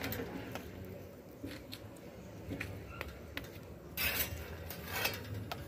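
Metal tongs clicking and scraping on a steel comal as a tlayuda is folded and turned, with light scattered clicks and two louder scrapes, about four and five seconds in.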